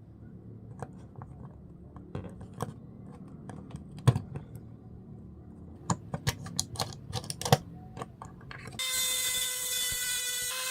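Scattered light clicks and taps of small parts and test probes being handled. Then, about nine seconds in, a multimeter's continuity tester sounds a loud, steady beep, showing that the probed wire has a connection.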